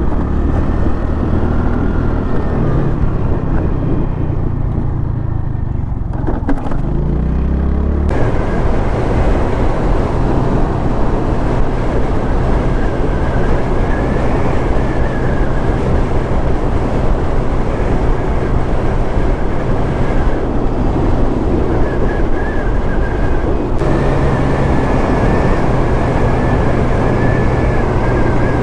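Motorcycle engine running at road speed under wind and road noise, its pitch climbing about seven seconds in as it revs up.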